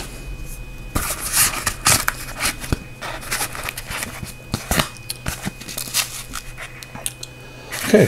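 Padded nylon holster rustling and scraping as a large flashlight is slid into it and the holster is turned in the hands, with scattered soft knocks.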